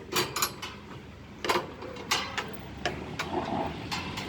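A series of sharp knocks and clicks at irregular intervals, about eight in all, like parts being handled and fitted by hand.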